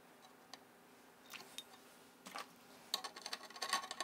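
Small metal hardware handled by hand against a 3D printer's aluminium frame: faint clicks and scrapes, then a burst of quick rattling clicks about three seconds in as nuts and washers are fitted onto bolts.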